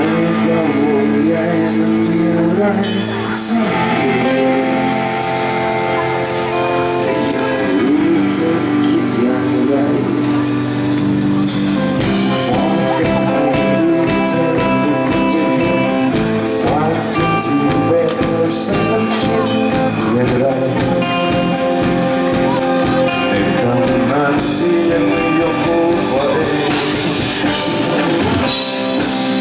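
A live band playing amplified music: guitar and drum kit, with a voice singing.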